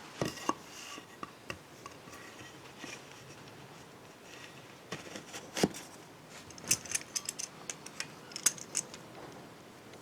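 Metal hand tools and engine parts clinking and knocking during engine disassembly: a few scattered knocks, then a quick run of sharp metallic clicks in the second half.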